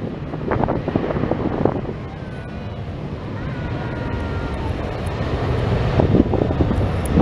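Boeing 737-800's two CFM56-7B26 turbofan engines at takeoff power on the takeoff roll: a steady jet roar that slowly grows louder, with wind gusting on the microphone.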